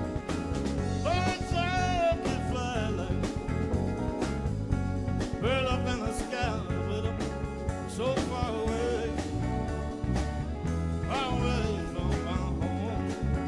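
Live band playing a bluesy spiritual: electric guitar lead lines with bent, wavering notes in several short phrases over drums, bass and keyboards.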